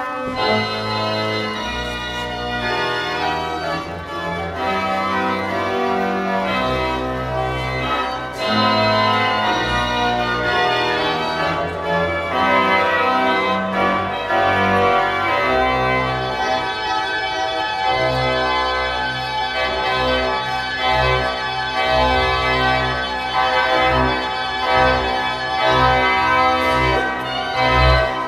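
Church organ played on its manuals and pedalboard: sustained, changing chords over a deep pedal bass line that moves from note to note.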